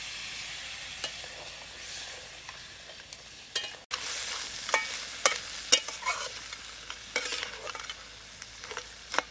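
Water poured into a hot wok of masala-fried crab hisses and sizzles steadily; about four seconds in, a flat metal spatula knocks and scrapes against the wok as the crab pieces are stirred in the sizzling sauce.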